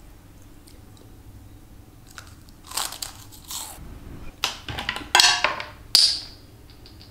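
Close-up crunchy bites into a crisp heart-shaped puff pastry (palmier): quiet at first, then five or so separate crunches from about three seconds in, the loudest near the end.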